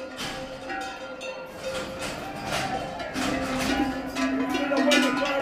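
Cowbells worn by cattle clanking and ringing irregularly as the animals walk into the pen, louder from about three seconds in.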